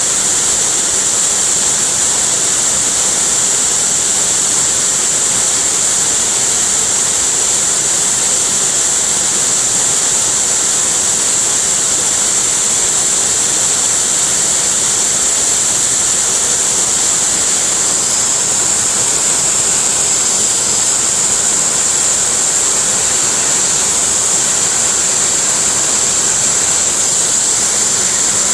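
Waterfall: a steady, unbroken rush of falling water with a strong high hiss.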